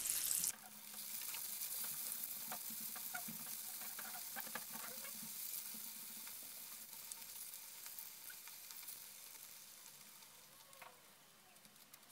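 Ribbon fish pieces frying for a second time in hot oil in a wok: a steady sizzle that slowly dies away and is nearly gone by the end, with a few light clicks.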